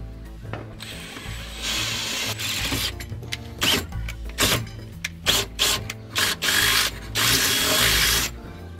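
Power drill boring a small hole up through a car's underbody panel, run in short bursts of the trigger and then in one longer push near the end as the bit cuts through. Background music with a steady beat plays underneath.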